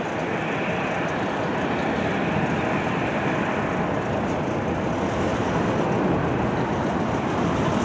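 Jet engine noise from a Boeing 787-9 with Rolls-Royce Trent 1000 engines on landing approach: a steady, rushing roar that grows slightly louder as the airliner passes low overhead.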